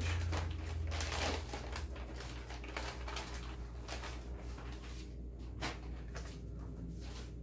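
Clear plastic packaging bag crinkling and rustling as it is handled and pulled open, with scattered sharper crackles, a little louder in the first second or so.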